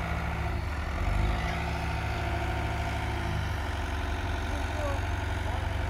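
Heavy diesel engines of the tractor loader and stuck dump truck idling, with a low steady rumble; a pitched engine note above it fades out about three and a half seconds in.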